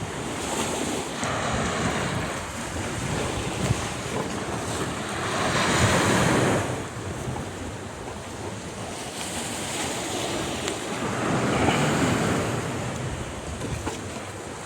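Sea waves washing in on the shore, two of them swelling up and falling away, with wind buffeting the microphone.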